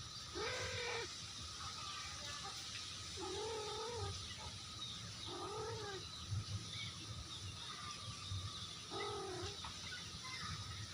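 A cat meowing four times, each meow an arched call that rises and falls over about half a second to a second, a few seconds apart.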